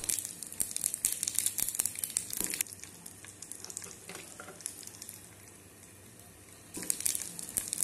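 Urad dal vadais deep-frying in hot oil, a dense crackling sizzle. It is loudest at first, dies down to a faint sizzle about two and a half seconds in, and picks up again near the end.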